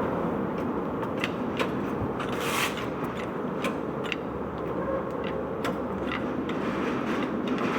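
Peugeot 206 RC on the move: a steady drone with a faint hum and light, irregular ticks every second or so. This is the abnormal noise of a failing intermediate drive-shaft bearing.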